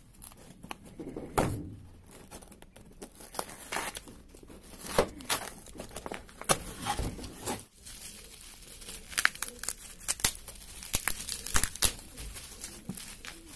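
Packing tape and a paper shipping label being torn off a cardboard shipping box by hand, in irregular rips and crackles; near the end, plastic wrapping crinkles as it is handled.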